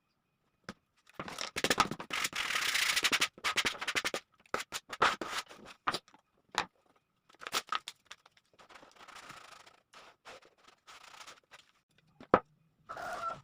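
Dry scraping and cutting strokes of hand work on sheet material, in irregular bursts with sharp clicks between them.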